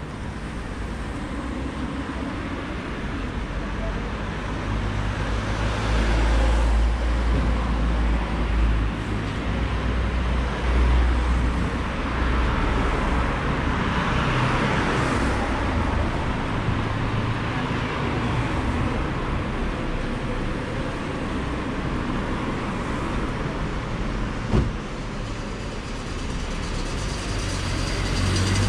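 Road traffic: cars driving past with a low rumble, one passing loudly about halfway through, and a single sharp knock near the end.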